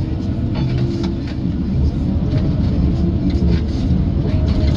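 Tigercat tracked feller buncher's diesel engine and hydraulics running steadily, heard from inside the cab, with a steady hum and scattered short knocks as the felling head works.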